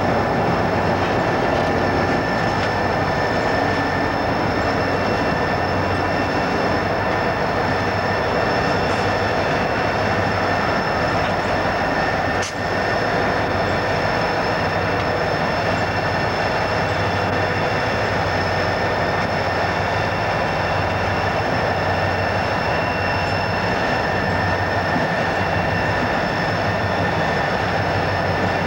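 Southern Pacific and Cotton Belt diesel locomotives rolling slowly past, their engines running with a steady rumble. Thin, steady high-pitched tones sit over the rumble.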